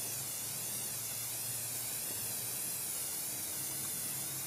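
Aerosol spray can of high-temperature primer spraying in one long, steady hiss that wavers slightly as the can is swept.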